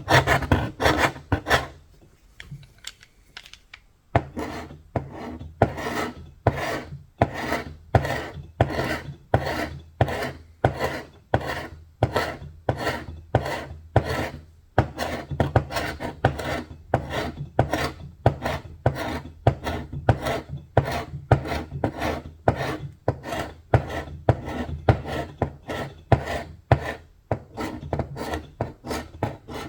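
Hand stripping of old paint and finish from a wooden surface, steady back-and-forth abrasive strokes about two a second, with a break of about two seconds near the start.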